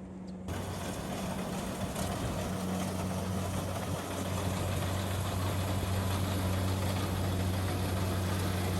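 Engine running steadily at constant speed: a low hum with a rushing mechanical clatter over it, cutting in about half a second in.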